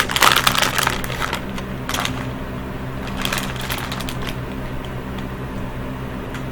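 Soft plastic bait bag crinkling and rustling as it is handled, busiest in the first two seconds and again around three to four seconds in, over a steady low hum.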